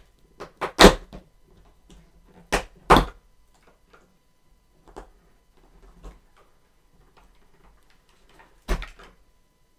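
Cardboard advent-calendar box being opened by hand: a series of sharp clicks and knocks from the cardboard door, loudest about a second in and again near three seconds, with fainter handling rustle between and one more knock near the end.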